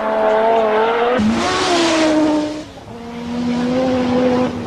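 Audi Sport Quattro S1 rally car's turbocharged five-cylinder engine running hard at a steady pitch. About a second in, a loud hiss cuts across it and the engine note falls away briefly, then the engine picks up again.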